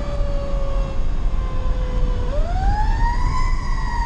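Fire engine siren heard from inside the cab: its pitch sinks slowly, then a little past halfway it climbs steeply again and peaks near the end. A steady low rumble of engine and road runs under it.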